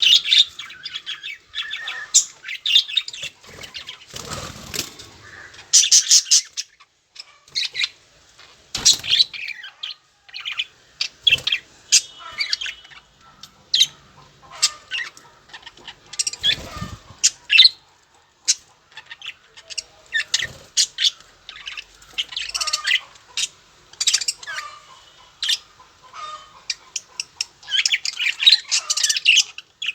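Budgerigars chirping and chattering in rapid, irregular short calls, with a few louder rustling bursts, such as wing flaps, about four, nine, sixteen and twenty seconds in.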